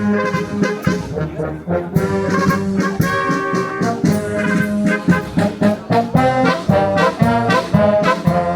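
Brass band music: trumpets and trombones playing a lively tune with quick, rhythmic notes over a steady low line.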